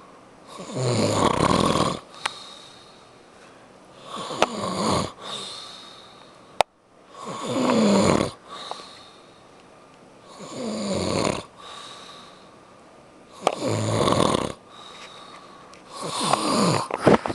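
A person snoring in deep sleep: six loud, rasping snores about every three seconds, each falling in pitch, with quieter breaths between. A single sharp click comes about six and a half seconds in.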